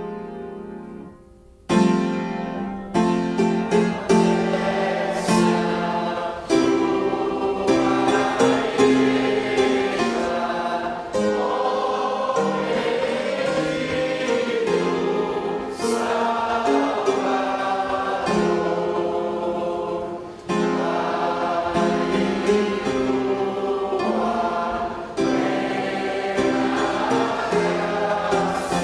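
Congregation singing a hymn together with piano accompaniment. The singing and piano come in together about two seconds in, after a short lull, and carry on in phrases.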